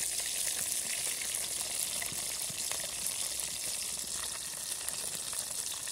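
Chicken wings sizzling in a pot over a wood-burning camp stove: a steady frying hiss with scattered small crackles.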